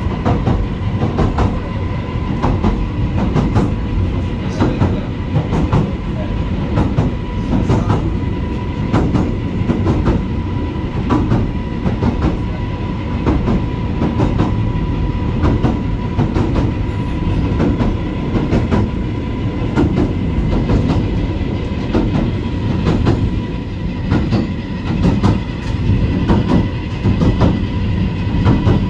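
Southend Pier Railway train running along the pier, heard from inside the carriage: a steady rumble from the wheels on the track, broken by frequent sharp clicks, with a steady whine underneath.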